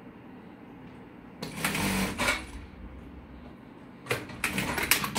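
Industrial sewing machine stitching in two short bursts, a longer run about a second and a half in and a rattly run near the end.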